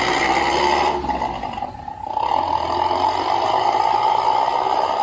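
Suzuki Carry Futura carburettor engine running through an aftermarket SUOS 'ngorok' (snoring-tone) exhaust while driving. The exhaust note is loud and steady, eases off briefly about a second in, then pulls up again.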